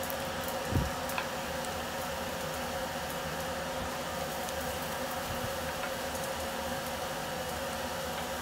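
Coconut pieces frying in coconut oil, the oil foaming and sizzling steadily over a faint steady hum. A dull knock comes about a second in as the spatula strikes the pot.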